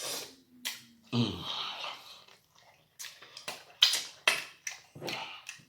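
Close-miked eating sounds as he eats BBQ ribs: a breath and a short low hum near the start, then a run of sharp, irregular wet lip smacks and chewing clicks in the second half.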